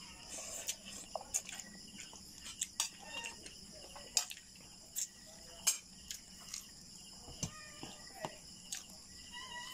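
Eating sounds: chewing, with many short sharp clicks of a spoon and fork against a plate, over a steady high chirring of insects such as crickets.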